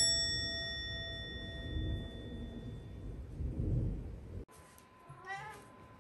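A bright chime sound effect strikes at the start and rings slowly away over a low rumble. After a cut, a cat gives one short meow about five seconds in.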